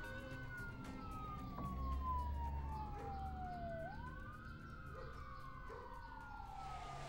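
Emergency vehicle siren wailing. Each wail rises quickly and falls slowly over a few seconds, and two wails overlap out of step, over a low traffic rumble.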